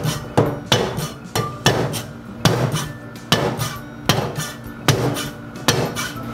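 Cleaver mincing garlic on a plastic cutting board: sharp knocks of the blade against the board, roughly one every half second.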